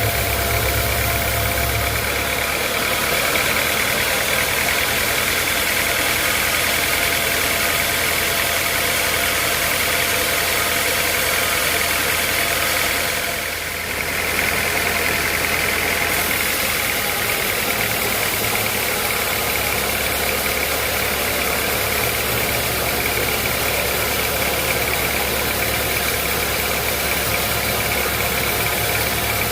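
Sawmill machinery running steadily: a continuous mechanical drone with a steady high whine over it, dipping briefly about halfway through.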